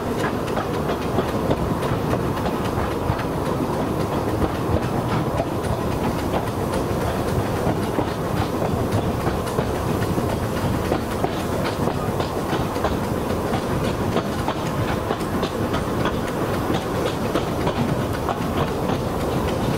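Narrow-gauge train running along the track: a steady rumble of wheels on the rails, with faint clicks over the rail joints.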